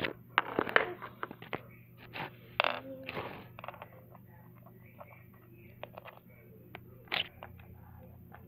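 Small plastic toy figures and pieces clicking, tapping and scraping on a wooden floor as they are moved and set down by hand, busiest in the first few seconds.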